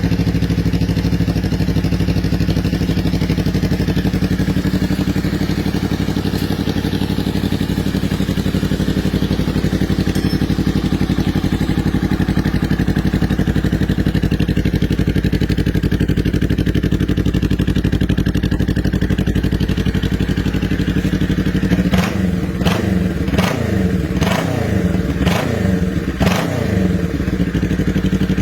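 Honda Rebel 500's parallel-twin engine idling steadily through a Noy Custom Big Shots staggered full exhaust system. A little over twenty seconds in come a handful of quick throttle blips, each falling back, before it settles to idle again.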